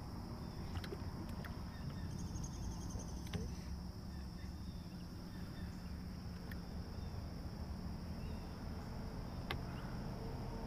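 Insects chirring steadily in one high, even buzz, faint, over a low rumble, with a few soft clicks here and there.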